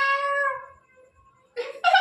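A person making a silly high-pitched vocal noise: a held, horn-like squeal lasting under a second that falls in pitch at the end. Near the end comes a short breathy burst and the start of another loud squawk.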